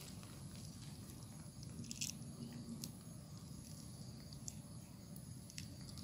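Soft scattered crackles and clicks of pomelo being peeled and eaten by hand, with one sharper crackle about two seconds in, over a faint steady background.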